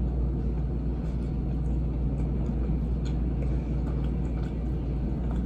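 A person chewing pepperoni and sliced cheese with the mouth closed: faint, irregular soft clicks over a steady low hum.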